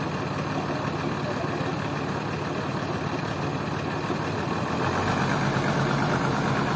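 Diesel bus engine with a racing exhaust idling steadily while it warms up to build air pressure. About five seconds in it gets slightly louder and deeper.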